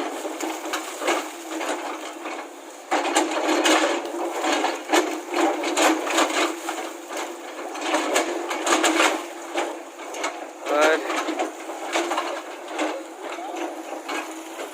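Irregular knocking and clattering, many sharp knocks at uneven spacing, over a steady hum, with a brief voice about two-thirds of the way through.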